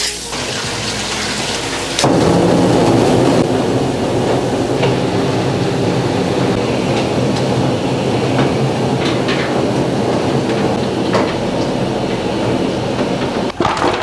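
Electric pig-trotter washing machine running: a steady motor hum under a dense rushing water-and-tumbling noise as the charred trotters churn against the brush rollers in the stainless-steel tub. It gets much louder about two seconds in.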